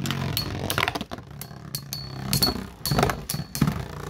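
Beyblade spinning tops battling in a plastic stadium, striking each other and the stadium walls in a run of sharp clinks and clacks over a steady low whir.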